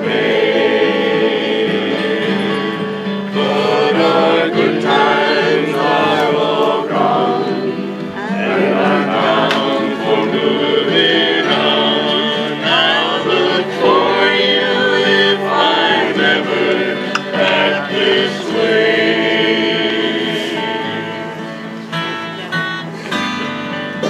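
A group of voices singing a folk song together to strummed acoustic guitars.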